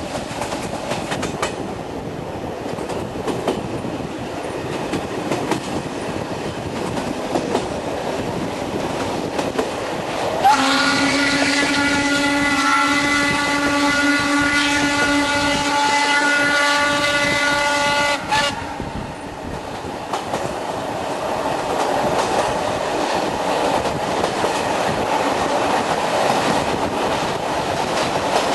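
Steam locomotive BDZ 46.03 running, its wheels clattering over rail joints. About ten seconds in, its whistle sounds for about eight seconds: it slides up briefly, holds one steady pitched tone, then cuts off sharply.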